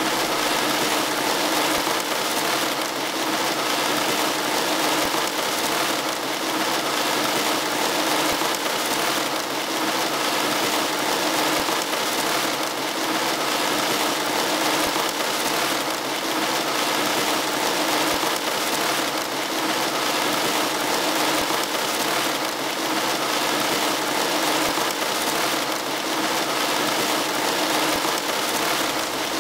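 Recorded hail falling: a steady, even patter of hailstones. Two hail recordings play together at first, then one alone.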